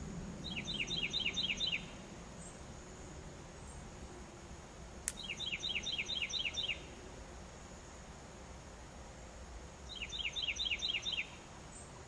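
A songbird singing the same phrase three times, each a quick run of about seven falling notes lasting just over a second, over a steady high insect drone.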